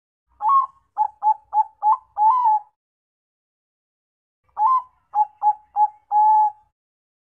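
Bangkok-strain zebra dove (perkutut) singing two cooing phrases: each opens with a longer note, runs into a quick series of short coos (four in the first phrase, three in the second), and ends on a longer drawn-out coo.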